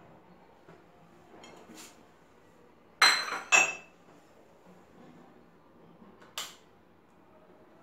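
Two sharp clinks of hard kitchenware about half a second apart, each with a short bright ring, and a fainter knock about three seconds later.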